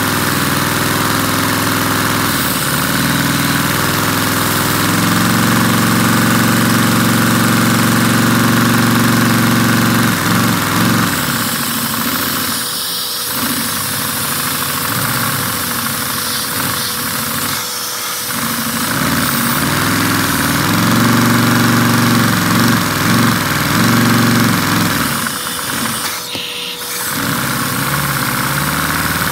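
Vacuum cleaner motor running with its hose drawing air through a LEGO inline-four vacuum engine, which runs with the clatter of its plastic pistons and valves. The drone shifts in pitch and dips briefly a few times.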